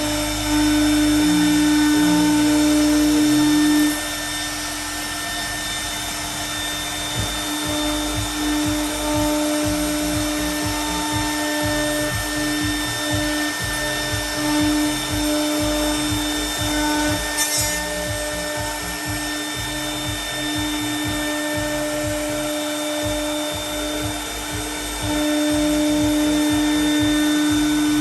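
Milling router spindle running with a steady whine while cutting aluminium composite panel. It is louder for the first four seconds and again for the last three, and uneven in between as the cutter works the panel, with one brief click about 17 seconds in.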